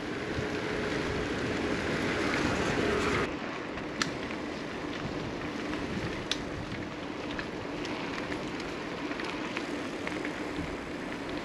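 Wind rushing over the microphone while cycling, with bicycle tyres rolling on a paved road and a few sharp rattles from the bikes. The rush drops suddenly about three seconds in.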